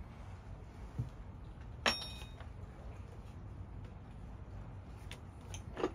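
A short metallic clink about two seconds in, ringing briefly, with a couple of fainter clicks around it over a quiet low background hum.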